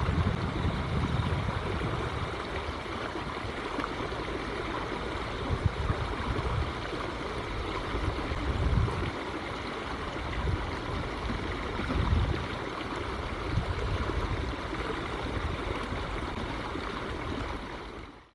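Steady rush of flowing river water, with repeated gusts of wind buffeting the microphone.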